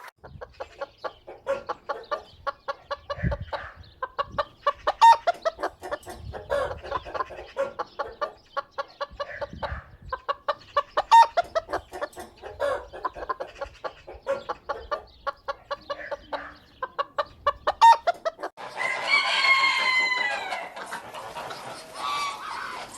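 Domestic hens clucking in quick, short, repeated calls, with a few sharper, louder clucks standing out. Near the end a different, longer, drawn-out bird call takes over.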